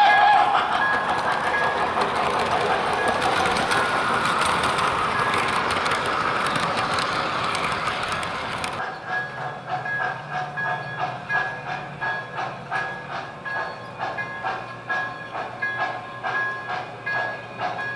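MTH RailKing O-gauge 0-6-0 steam switcher model train running on three-rail track. For the first nine seconds its freight cars roll past close by with a steady rushing rumble. Then the sound changes abruptly to the locomotive's onboard sound system chuffing in a steady beat, about two to three chuffs a second, as it comes closer.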